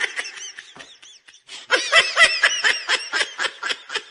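High-pitched laughter: quick strings of short rising-and-falling laughs, pausing briefly about a second in, then a denser run that thins out toward the end.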